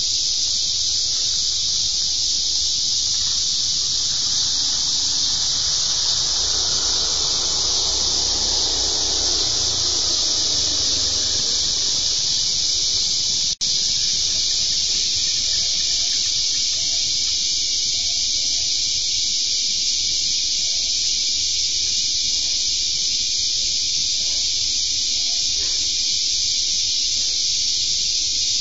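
Steady, loud, high-pitched insect chorus, an even shrill hiss with no pauses. A fainter sound glides down in pitch about a quarter of the way in, and the audio drops out for an instant near the middle.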